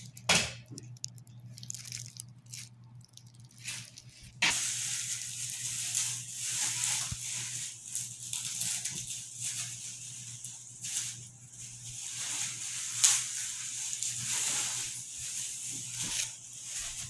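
Bubble wrap and plastic sheeting crinkling and rustling as it is pulled off and handled around wrapped cabinet shelves. It starts about four seconds in, after a few light knocks, and runs over a steady low hum.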